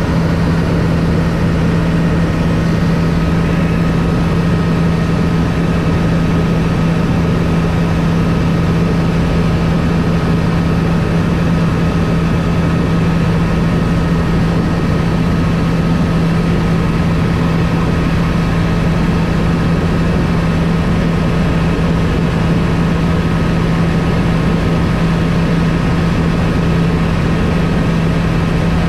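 Bell helicopter in flight heard from inside the cabin: a loud, steady drone of engine and rotors, with a strong low hum and a thin, steady high whine over it.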